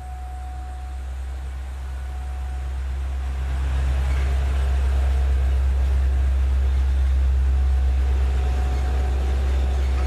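An older full-size pickup truck approaching and driving past, its engine rumble growing louder over several seconds and staying at its loudest through the second half. Behind it, a distant outdoor warning siren's steady tone fades out early and comes back near the end.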